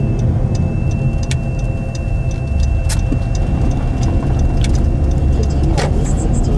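Car cabin noise while driving: a steady low rumble of engine and tyres on the road, with a faint steady high whine and a few scattered sharp ticks.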